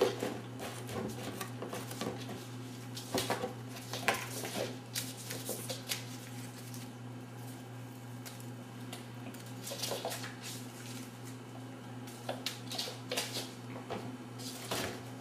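Irregular light knocks, scrapes and scrabbling as two kittens play around a cardboard drinks case on a wooden floor, their paws skidding and the box being bumped, over a steady low hum.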